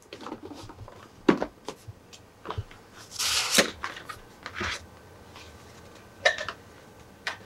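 Cardboard collector's box being opened by hand: scattered knocks and taps, with a sliding, rustling scrape of the lid flap about three seconds in and a few sharp clicks near the end.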